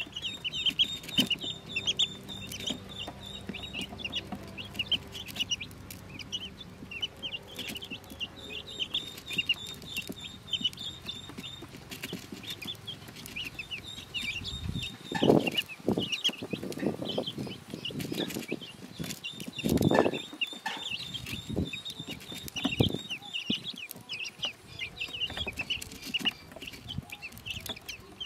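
A group of newborn Pekin ducklings peeping on and on in quick, high chirps, with a few louder, lower sounds about halfway through and again a few seconds later.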